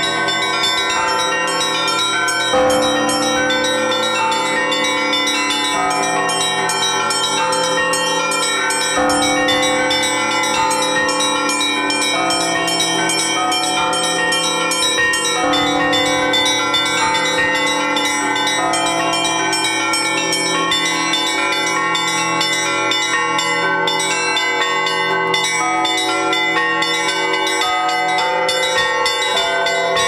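Festive Russian Orthodox bell peal (prazdnichny zvon) on a church's bells, rung by one bell-ringer: rapid, continuous strikes on the small bells over ringing mid-size bells, with a deep stroke of the big bell every several seconds.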